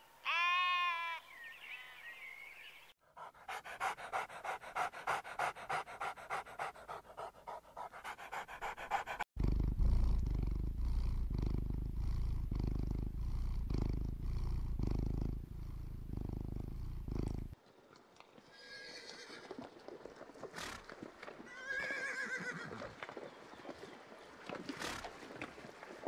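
A sheep bleats once at the start. A sequence of other animal sounds follows, joined by abrupt cuts: a run of even pulses about three a second, then a loud, low, steady stretch that stops suddenly, then a few quieter calls near the end.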